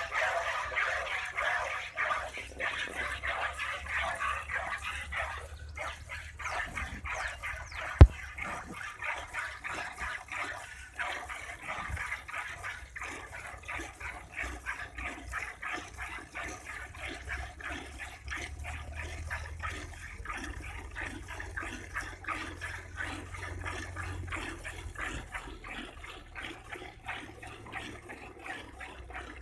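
Milk squirting in rhythmic streams into a steel pail as a cow is milked by hand, several squirts a second. There is one sharp knock about eight seconds in.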